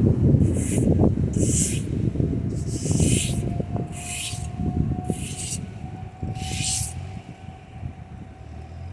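A rake scraping through fallen tree debris in about six strokes, roughly a second apart, stopping about seven seconds in, over a low rumbling noise.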